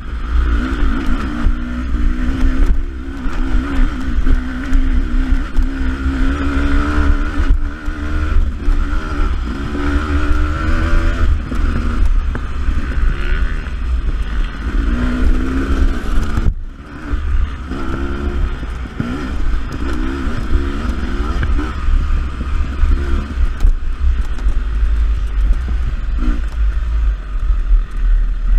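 Beta 300RR two-stroke enduro motorcycle ridden on a trail, its engine pitch rising and falling as the throttle is worked, over a heavy low rumble. About two-thirds of the way through the engine note drops briefly, as if the throttle is shut off, then picks up again.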